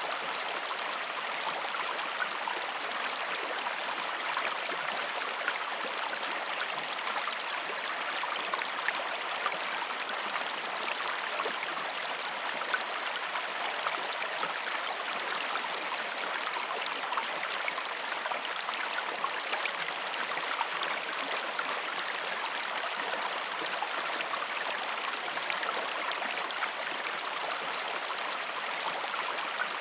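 River water flowing and babbling steadily, an even rushing with small splashes and no change in level.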